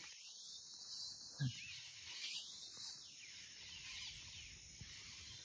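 Faint chorus of wild birds and insects: a steady high hiss with scattered short chirps.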